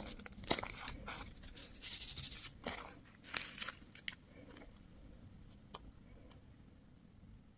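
Candy wrappers and plastic packaging being handled and torn open: crackling, crinkling and sharp clicks for about four seconds, then only a few faint clicks.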